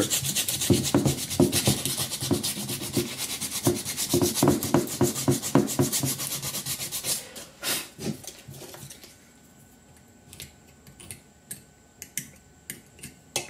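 Sandpaper rubbed by hand back and forth over a primed polystone resin statue, in rapid scratchy strokes. About seven seconds in the sanding stops, leaving a few knocks and then only faint scattered scratches and taps.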